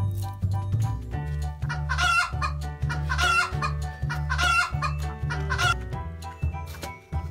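Chicken clucking in short repeated calls, four times about a second apart, over background music with a steady bass line.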